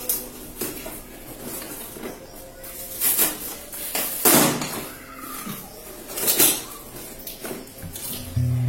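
A parcel being opened by hand: several short bursts of packaging noise and hard clatter, about a dozen seconds apart at most, with the loudest a little past the middle.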